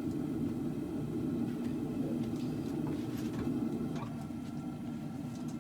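Steady low rushing of a running forge, with a few faint clicks about halfway through.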